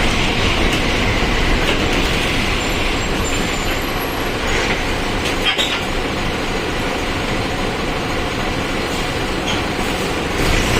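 Mercedes-Benz OF-1722M bus running as it is driven: a steady engine and road noise, with one sharp click about five and a half seconds in.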